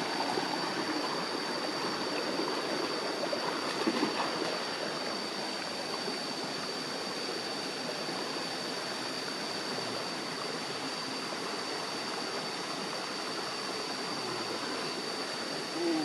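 A stream running over rocks: steady rushing water, with a thin high-pitched tone held above it and a brief louder sound about four seconds in.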